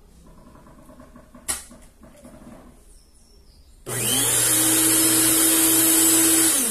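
Mondial Prática 400 W stand mixer's motor switched on with empty beaters, spinning up quickly to a steady high whine and running for about three seconds, then switched off near the end and winding down with falling pitch. A single sharp click comes about a second and a half in, before the motor starts.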